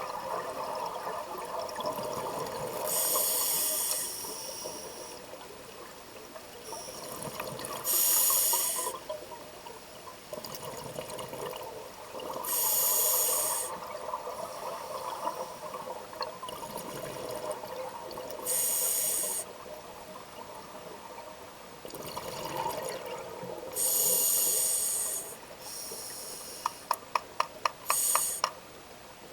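A flashlight knocked rapidly against a hard surface, about nine sharp raps near the end. Before that come recurring one-second bursts of hissing, about every five seconds, over a steady rushing murmur.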